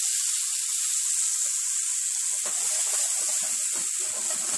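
Marinated chicken pieces sizzling in hot coconut oil in a frying pan: a steady, bright hiss as the wet mixture hits the hot oil. From about halfway, irregular knocks and scrapes are heard as the pan is worked and the chicken stirred.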